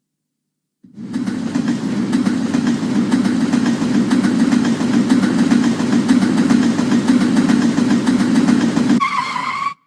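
London Underground train running, a loud steady rumble with hiss above it. It starts abruptly about a second in. Near the end a brief wavering higher tone sounds, then everything cuts off suddenly.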